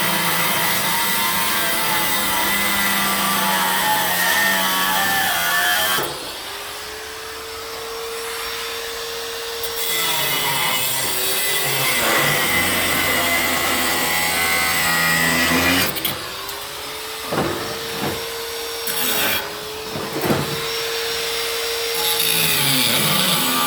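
Electric angle grinder cutting metal, a loud grinding hiss. Twice, about six seconds in and again about sixteen seconds in, it comes off the cut and runs free with a steady whine before winding down, with a few sharp knocks in between.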